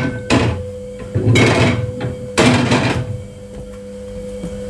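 Fridge shelves and items being knocked and clattered into place inside a fridge, three bursts of clatter in the first three seconds. A faint steady hum runs underneath.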